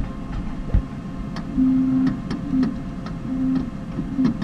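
Motorized chin rest of a visual field analyzer giving a low whir that starts and stops several times as it is adjusted, with a few light clicks in between.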